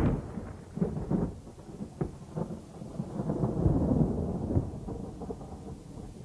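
Rumbling thunder with scattered crackles, swelling to its loudest about four seconds in and then dying away.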